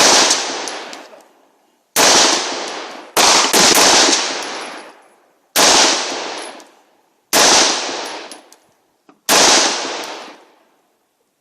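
Custom-built AR-15 rifle fired as single shots: seven shots roughly two seconds apart, with a quick pair about three seconds in. Each shot trails off in a long echo lasting over a second.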